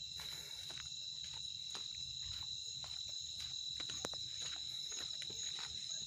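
Crickets chirping in a steady high trill, with footsteps on a dirt path about two to three a second.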